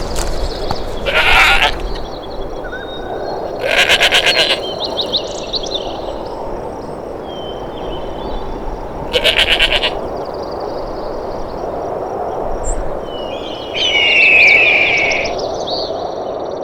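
An animal bleating three times, each call under a second long with a rapid quaver, over a steady background hiss. High bird chirps run between the calls, with a louder falling call near the end.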